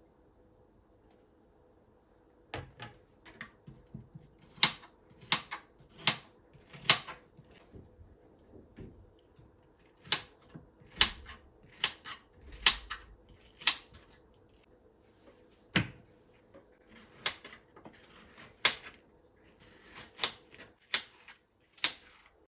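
A run of sharp, irregular taps and clicks, roughly one every half second to a second, starting a couple of seconds in, with one heavier knock about two-thirds of the way through.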